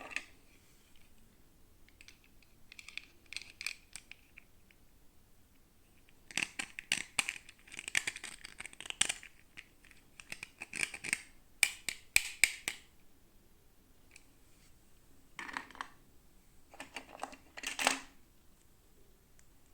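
Toy packaging being handled and opened, with crackly rustling and small sharp clicks in three bursts. The middle burst is the longest and loudest.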